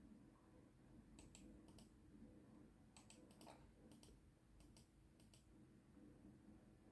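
Near silence: room tone with a dozen or so faint, short clicks scattered through the middle of the stretch.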